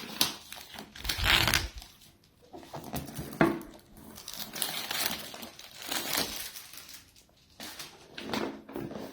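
Plastic wrapping being torn and crumpled by hand as it is pulled off a power supply's retail box, in irregular rustling bursts with short pauses.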